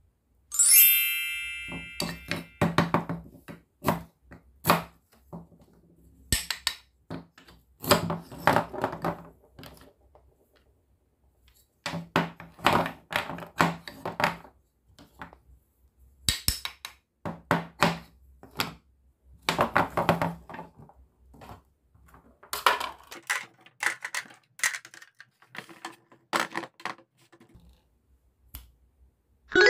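Plastic toy fruit and vegetables being cut apart with a toy knife and set down on a table: irregular clacks, knocks and short scraping rasps with brief pauses. A short ringing ding sounds about a second in.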